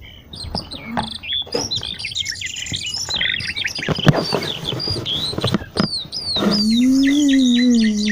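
Birds chirping and singing in many quick, rapid calls and trills, with a few sharp knocks along the way. Near the end a low held tone rises and falls under the birdsong.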